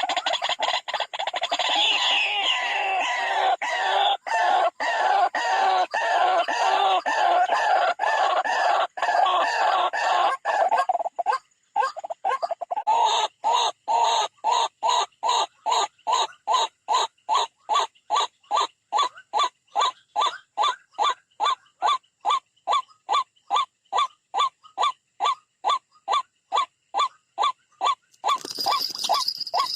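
White-breasted waterhens calling: a dense tangle of overlapping croaking calls, then, about 12 seconds in, a steady run of harsh notes about two a second. A brief rustling noise comes near the end.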